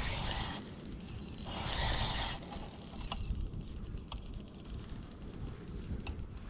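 Fishing reel running in two bursts of about a second each near the start, followed by a few faint ticks, while a hooked mulloway pulls on the line. Wind rumbles on the microphone throughout.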